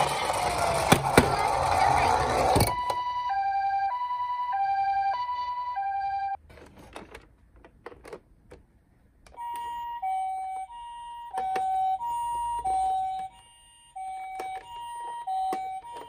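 Toy ambulance's electronic two-tone siren in the Japanese 'pee-po' pattern: a higher and a lower tone alternating, about one pair every second and a quarter. It is preceded by a couple of seconds of loud whirring from the toy's motor, stops about six seconds in, with a few handling clicks, then starts again about three seconds later, with a brief break near the end.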